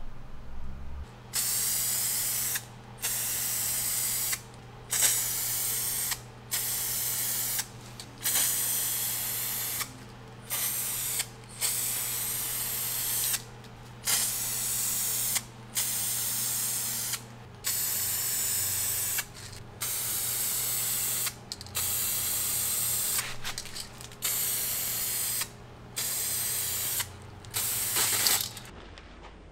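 Aerosol spray can of paint being sprayed in a series of short hissing bursts, each about one to two seconds long with brief pauses between.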